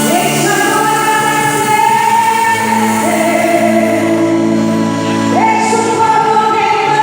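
Gospel music with choir-like singing: long held notes, each new phrase sliding up into its note about every two and a half seconds.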